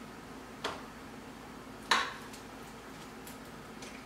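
Two light clinks of a utensil and roasted sweet potato pieces against plastic meal-prep containers as the potatoes are portioned out. The second clink is louder, with a brief ring. A faint steady hum runs underneath.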